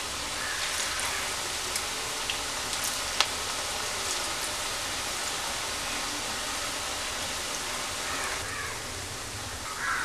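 Onion pakoda fritters deep-frying in hot oil in a wok: a steady sizzle with a few small pops.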